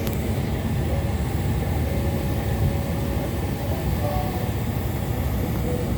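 Steady, loud mechanical rumble of airport apron noise from aircraft and ground equipment during baggage unloading, with a faint wavering whine.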